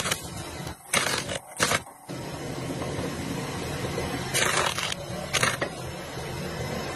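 Small skid steer loader's engine running steadily, with irregular loud cracks and crunches of wood as its stump crusher breaks up a stump.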